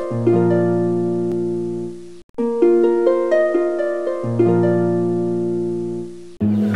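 Instrumental background music of plucked, harp-like notes over held low notes. It cuts out briefly about two seconds in, and switches abruptly to a different piece near the end.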